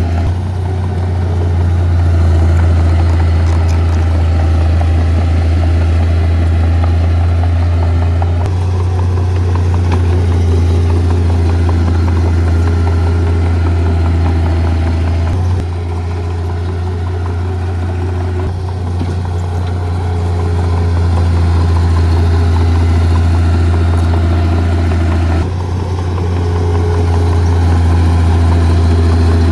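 Heavy earthmoving machine's diesel engine running steadily with a deep drone, its sound shifting abruptly three times.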